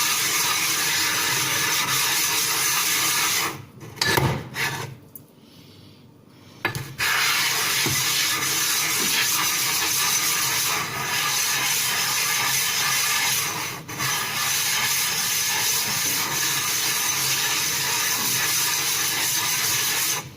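Welsh slate sharpening stone rubbed back and forth on glass with loose 400-grit silicon carbide grit, a steady gritty scraping that conditions the stone's sharpening surface. The scraping stops for about three seconds around four seconds in, with a couple of light knocks, then resumes.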